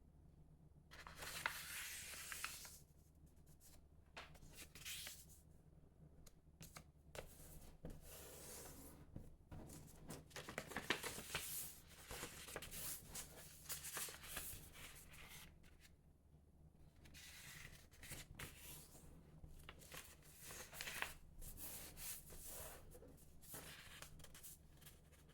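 A sheet of 15 cm Tant origami paper being folded by hand: faint, irregular rustling and crisp creasing sounds as the paper is handled and pressed flat.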